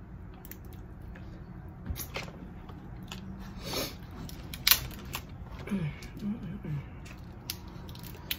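Close-up eating sounds of Dungeness crab and shrimp: wet chewing and mouth smacks, with several sharp clicks and cracks, the loudest a little past the middle. Brief low vocal sounds come in just after it.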